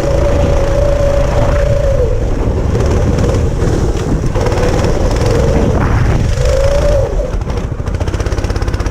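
Go-kart engine running, its pitch holding, dipping and rising again as the throttle is worked, then dropping to a rapid, even chug about seven seconds in.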